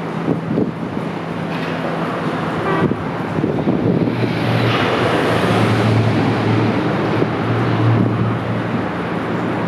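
River water rushing steadily, with a low steady hum underneath that deepens in pitch and grows a little louder about four seconds in.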